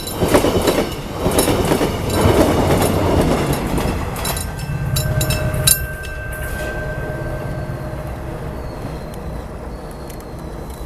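Mugunghwa-ho passenger train rolling past, its wheels clacking rhythmically over the rail joints. About four seconds in the last car goes by, and the sound drops to a low rumble that slowly fades as the train moves away.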